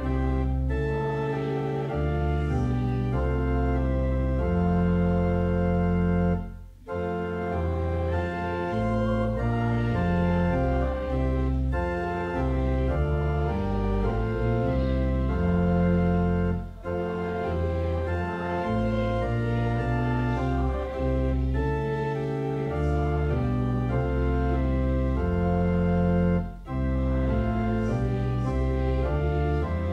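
Church pipe organ playing a hymn tune in sustained chords over a steady bass, with a brief break about every ten seconds between phrases.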